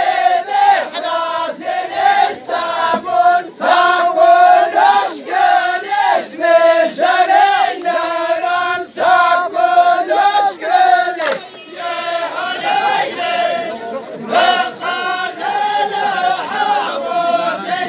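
A group of voices singing a chant-like song together in short repeated phrases, softer for a couple of seconds about two-thirds of the way through.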